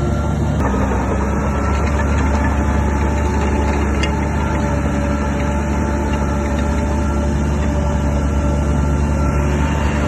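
Heavy diesel engine of a Shantui DH17 bulldozer running steadily.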